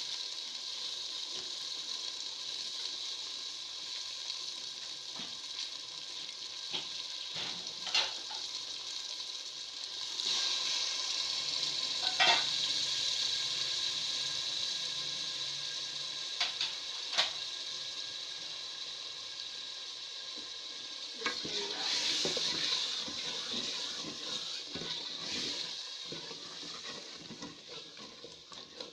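Peas and potatoes in tomato-onion masala sizzling steadily in a metal pot, stirred with a wooden spoon that knocks against the pot a few times. A spell of brisker stirring comes about two-thirds of the way through.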